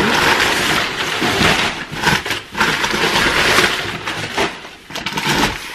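Brown kraft packing paper being pulled out of a cardboard parcel and crumpled: a loud crackling rustle that goes on in waves, dipping briefly about halfway through and again near the end.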